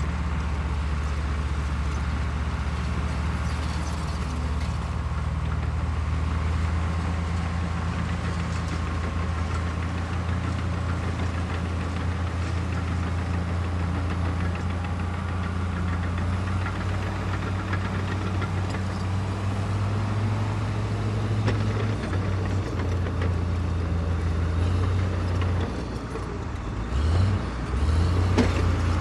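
Bulldozer's diesel engine running steadily with a deep, even hum. Near the end it dips briefly, then revs up and comes back louder.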